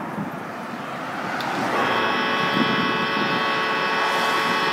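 A vehicle horn sounds about two seconds in, one steady held blast of several tones lasting about three and a half seconds, over a constant background of engine and traffic noise.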